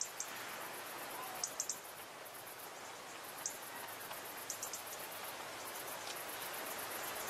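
Steady outdoor hiss of open-air ambience, with a few very brief high chirps in little groups of two or three.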